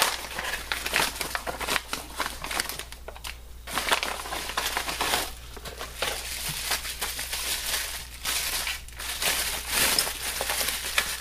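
A kraft-paper mailing envelope being torn open and crumpled by hand, then a plastic bubble-wrap sleeve being crinkled and pulled open, with dense crackling broken by a few short pauses.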